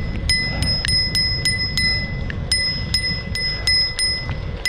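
A small bicycle bell dinging over and over with short, uneven strikes about four times a second. Under it is the low rumble of wind and tyres on pavement while riding.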